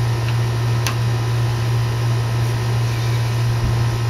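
Steady low mechanical hum from a running machine, with one sharp click about a second in.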